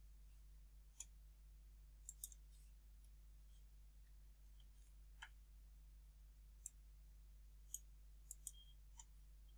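Near silence: faint room hum with about nine faint, short computer-mouse clicks scattered through, a few close together in pairs.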